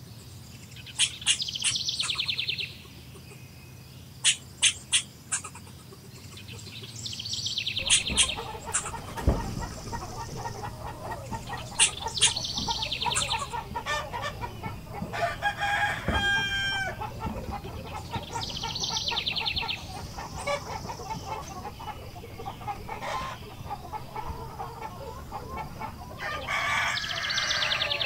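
Chickens clucking from about a third of the way in, with a rooster crowing once about halfway through. Throughout, a songbird repeats a short phrase of sharp high notes that ends in a trill every few seconds.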